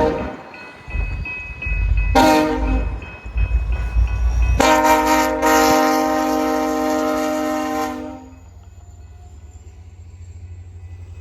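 Locomotive air horn sounding a chord of several notes: two short blasts, then one long blast of about three and a half seconds, over the low rumble of a passing train.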